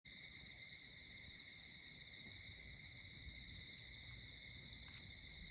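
Steady chorus of insects, crickets trilling in several high pitches at once without a break, over a faint low rumble.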